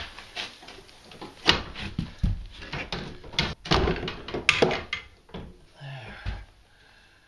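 Irregular metal knocks and clunks from a snowmobile's front suspension as the lower A-arm is worked loose and pulled free by hand, with a few heavier thumps among lighter clicks.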